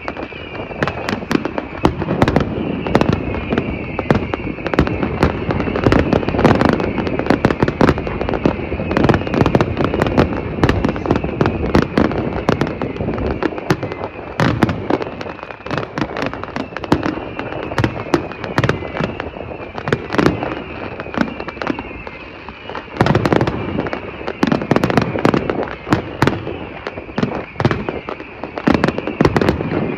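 Fireworks display: a dense, unbroken barrage of bangs and crackles, with a high whistling running through it. The bangs thin out briefly a little past twenty seconds in, then pick up again.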